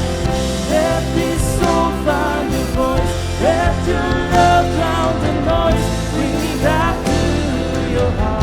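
Christian worship song: a band's sustained chords and bass, with a wavering sung melody line over them.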